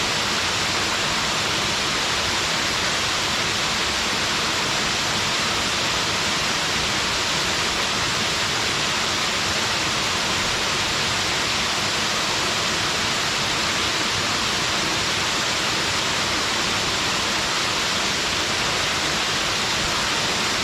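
Small mountain waterfall pouring steadily: an even, unbroken rush of falling water, strongest in the mid and high range.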